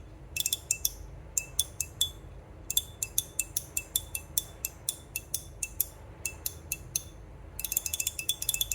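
GAO Studio Hour Glas slider fidget with a polycarbonate body and PEEK liner, clicking as it is slid back and forth. Each click is sharp with a brief clinking ring, a few a second with short pauses and a fast run of clicks near the end.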